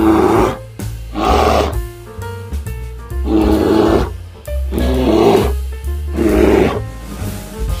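Bear roars repeated about five times, each a growling roar of half a second to a second, over background music with a steady bass line.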